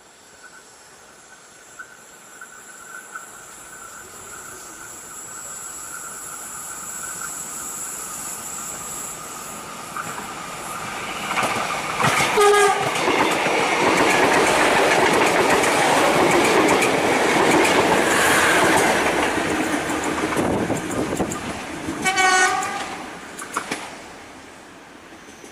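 KA Bandara YIA airport train approaching and passing close by, its running noise building steadily into a loud rush of wheels on rail. It sounds its horn in two short blasts, one about halfway through and another about ten seconds later, and the noise fades near the end.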